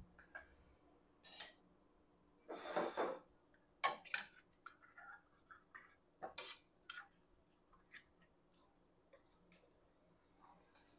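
Metal ladle and spaghetti tongs clinking and scraping against a frying pan as spaghetti is lifted out to serve: a handful of sharp clinks spread out with quiet gaps, and a longer scrape about three seconds in.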